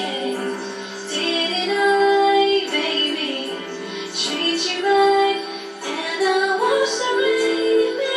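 A female voice singing a pop song, holding several long notes.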